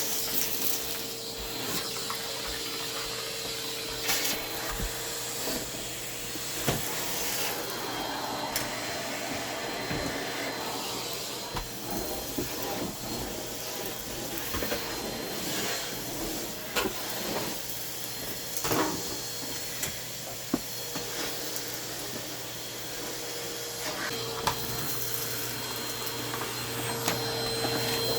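Numatic Hetty cylinder vacuum cleaner running with a steady hum, with a few short knocks along the way.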